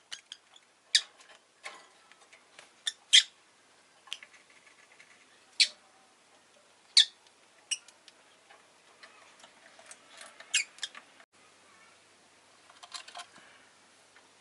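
Rosy-faced lovebird giving short, sharp chirps and squawks at irregular intervals of a second or two, with faint small ticks and scratching between calls.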